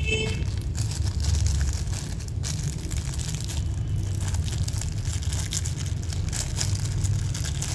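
Rustling and crinkling of hands handling a lighter and its packaging close to the microphone, with scattered faint irregular clicks over a steady low rumble.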